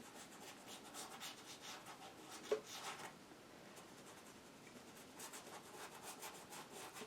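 Paintbrush working acrylic paint: faint, quick scratchy brush strokes in two runs of rapid strokes.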